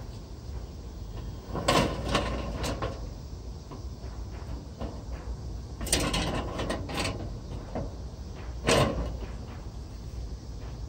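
Metal wire-mesh grill grates clattering and scraping against the barbecue's bars as they are set in place, in three bursts of rattling: about two seconds in, around six seconds, and just before nine seconds. A steady low rumble runs underneath.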